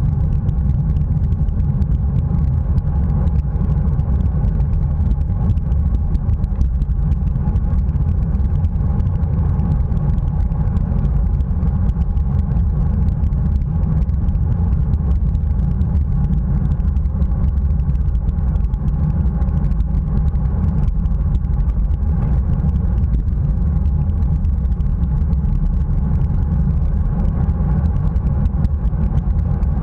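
Steady low wind rumble and road noise on a bicycle-mounted action camera moving at racing speed, heaviest in the bass and unbroken throughout.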